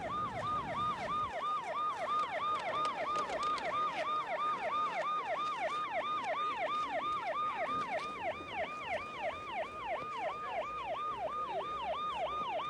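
Ambulance siren in fast yelp mode, an electronic tone sweeping down in pitch about four times a second, over and over.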